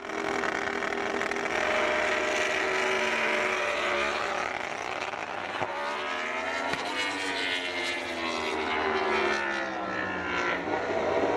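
Ducati MotoGP racing motorcycle's V4 engine revving at high rpm on track, its note held high at first and then rising and falling through gear changes as the bike passes.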